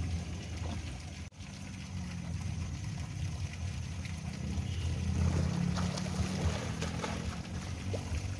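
Light splashing of pool water over a steady low rumble.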